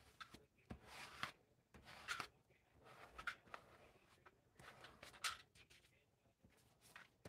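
Several short, faint scrapes of a plastic Bondo spreader dragged across painted paper, spreading acrylic paint.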